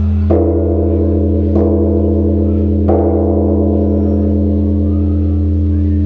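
Large bronze temple bell struck three times with a hanging wooden log, the strikes about a second and a half apart. Each strike sets off a fresh ringing over the bell's deep, lingering hum.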